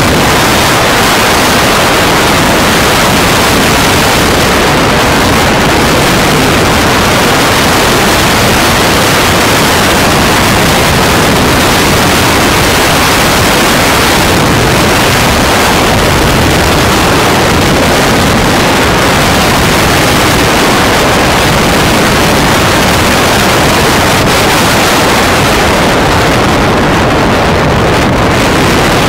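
Steady, loud wind rushing over the microphone of a Bajaj Pulsar 180 motorcycle riding at speed, with road and engine noise buried in the rush.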